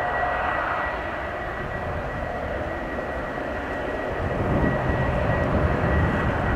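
Bombardier Global 7500 business jet's GE Passport turbofans running at low thrust as it rolls slowly after landing. A steady high whine sits over a jet rush and low rumble, and the rumble grows louder about four seconds in.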